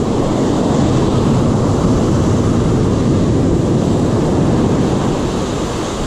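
Surf breaking and washing up a sandy beach, a loud steady rush, with wind buffeting the microphone.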